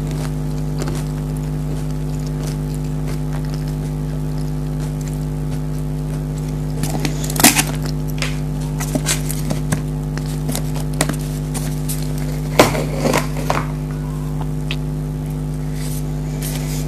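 Pringles potato crisps being bitten and crunched, in scattered sharp crunches with louder ones about seven and a half and twelve and a half seconds in, over a steady low hum.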